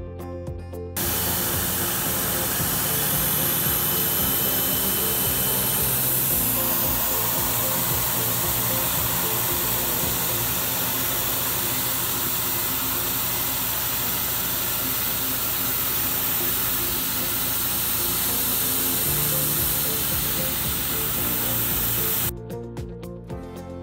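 Tormach PCNC 770 CNC mill cutting an aluminium block with a carbide end mill: a loud, steady hiss of cutting noise that starts about a second in and cuts off abruptly near the end. Background music plays underneath.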